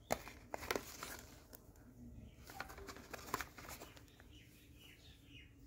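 Cardboard mouse box handled and turned over in the hands: a few sharp taps and rustles, loudest in the first second and again about three seconds in.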